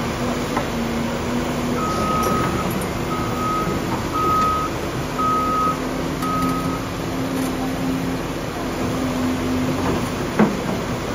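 Diesel engine of a Caterpillar 335F excavator running steadily, with a backup alarm beeping five times, about one beep a second. A single sharp knock comes near the end.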